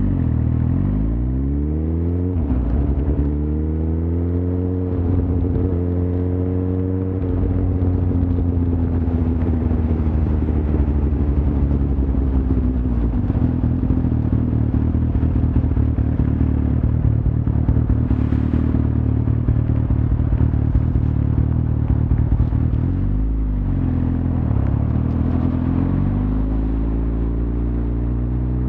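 Suzuki GSX-R1000's inline-four engine running under way. Its pitch climbs, drops sharply a couple of seconds in, climbs again, then holds fairly steady. Near the end it dips and rises once more.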